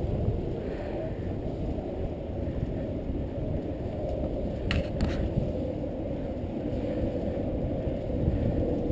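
Wind buffeting the microphone of a handlebar-mounted camera, mixed with a road bike's tyres rolling on asphalt: a steady low rumble while riding. Two brief clicks come a little past halfway.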